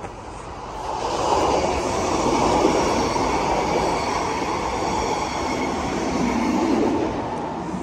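Electric train passing on the railway line beside the path: a rushing rumble that builds about a second in, holds, and eases near the end, with a faint higher whine over it.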